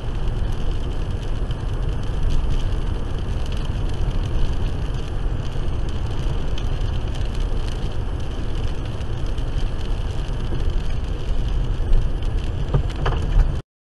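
Steady road and tyre noise heard inside a car driving on a wet highway in the rain, with two sharp knocks near the end, then a sudden cut-off.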